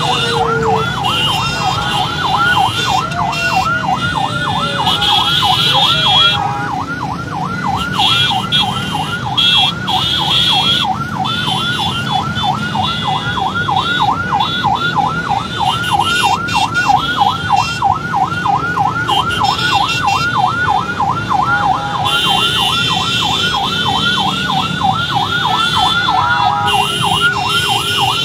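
Police vehicle siren in a fast yelp, its pitch rising and falling several times a second without a break, over the steady rumble of slow road traffic.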